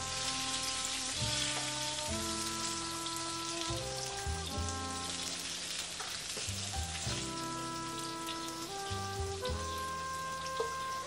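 Browned sausage slices sizzling in hot olive oil in a frying pan on a lit gas burner, a steady hiss, with soft background music of held notes under it.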